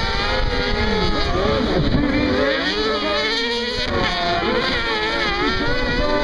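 Several off-road racing buggy engines running at once on a dirt track, their notes overlapping and rising and falling as the drivers rev and lift through the corner.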